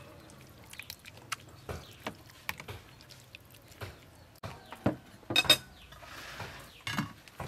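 Metal spoon clinking and scraping against a plastic mixing bowl and a small ceramic bowl while a wet salad of bean sprouts and pickled lotus root is stirred and spooned out. Light clicks are scattered throughout, with a louder clatter about five seconds in. Near the end a lid is set on the bowl with a soft knock.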